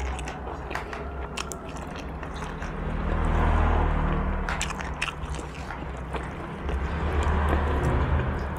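Close-miked chewing and biting of boiled pork bone meat, with scattered sharp clicks. The chewing swells louder twice.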